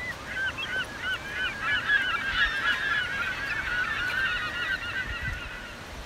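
A large flock of seabirds calling over the shore: many short, overlapping calls that are busiest about two to three seconds in and die away near the end.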